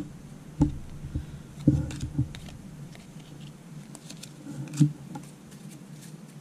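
Trading cards being flipped through by hand: soft rustling with a few sharp taps and clicks, the loudest about a second and a half in and near five seconds, over a faint low hum.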